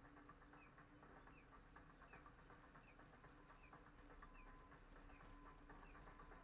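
Near silence: a faint steady hum with a soft, high chirp repeating about every two-thirds of a second.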